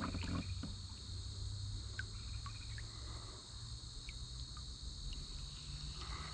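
Steady insect chorus of crickets, a constant high shrill band, with a few short faint chirps over it and a low rumble underneath.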